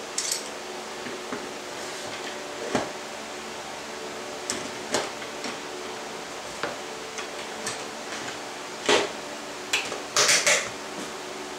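Scattered clicks and knocks of hand tools being handled and set down on a workbench, with a quick cluster of louder knocks near the end, over a steady background hum.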